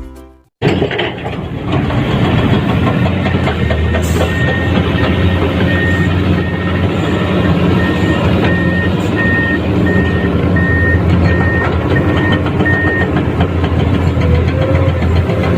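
Heavy diesel engine running under working load, with a repeated short warning beep from a backup or travel alarm about every 0.7 s, starting about four seconds in and stopping a few seconds before the end.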